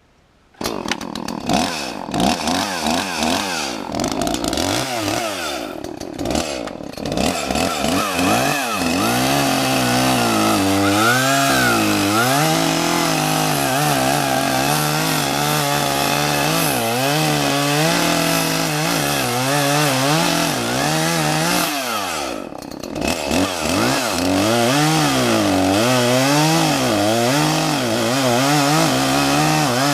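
Two-stroke chainsaw running under load as it cuts into a tree trunk, its engine pitch rising and falling again and again as it bogs and recovers in the cut, with a brief drop in revs a little past the middle.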